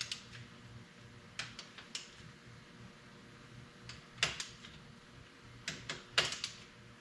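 Scattered sharp metallic clicks and clinks of a hand wrench snugging down the bolts of a torque plate on an engine block, a few seconds apart, over a faint steady hum.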